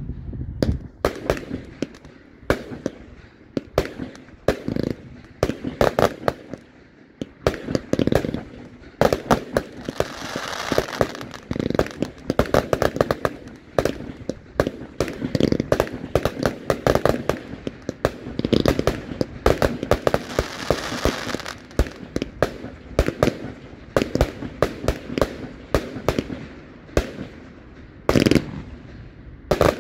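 Aerial fireworks being fired in quick succession: a continuous string of sharp launch reports and shell bursts, with a dense crackle of bursting stars between about ten and twenty seconds in.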